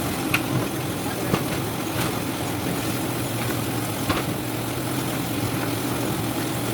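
Citrus sorting machine running: a steady mechanical hum with a few sharp knocks scattered through.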